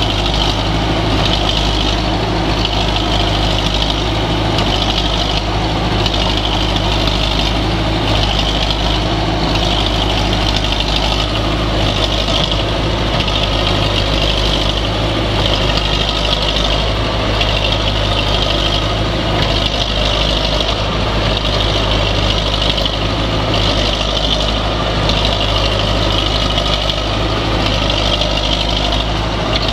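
Diesel engine of a Caterpillar 951B track loader running steadily.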